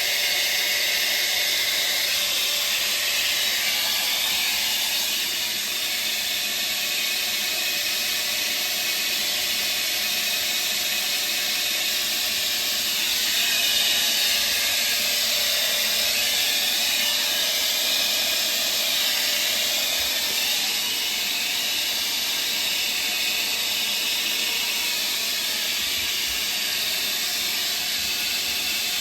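Hair blow dryer running steadily, blowing hot air to melt ice built up around a refrigerator's evaporator coil.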